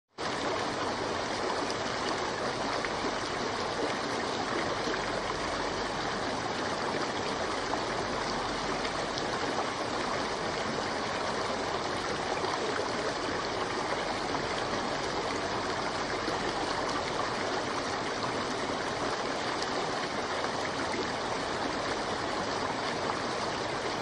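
Running water: a steady, even rush like a flowing stream.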